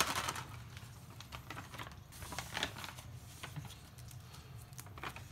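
A paper gift bag and the folded paper slips inside it rustling and crinkling as a hand reaches in to draw one, in scattered small clicks and rustles.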